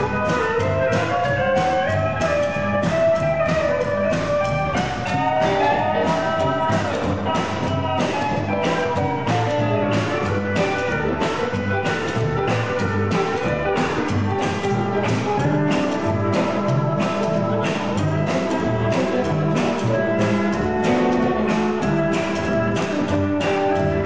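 Live rockabilly band playing an instrumental passage with electric guitars, upright double bass and drum kit, keeping a steady beat of about two strokes a second under a wavering lead melody.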